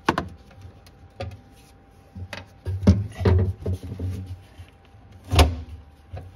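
Hands working at the fuel pump access cover under the jute insulation padding. Scattered sharp knocks and clicks with rustling, the loudest knock about five seconds in.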